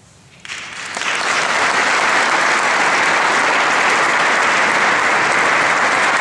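Audience applauding at the end of an organ piece: the clapping starts about half a second in, swells to full within a second, and then holds steady.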